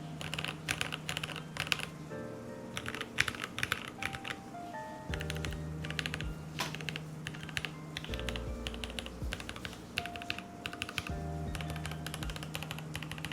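Rapid typing on a custom 60% mechanical keyboard (TOKYO60) fitted with lubed and filmed Noir Rose linear switches and foam-dampened, in several runs of quick keystrokes with short pauses between them. Background music with a steady bass line plays underneath.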